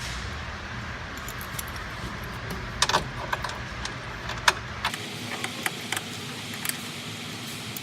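Metal caster hardware clinking as bolts and fittings are handled and fitted: a few sharp clinks about three seconds in, then scattered light clicks.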